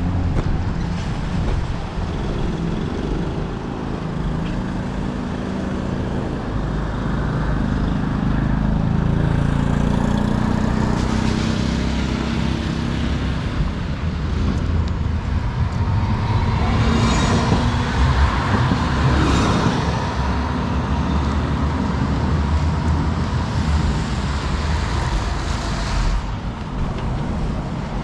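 Riding noise from a bicycle-mounted GoPro on a wet street: a steady low rumble of wind on the microphone and tyre hiss, with traffic around. A passing vehicle adds a louder hiss about two-thirds of the way in.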